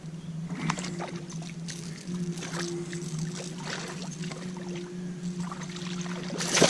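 Steady low boat-motor hum, with scattered light clicks and water noises over it and a loud burst of noise near the end.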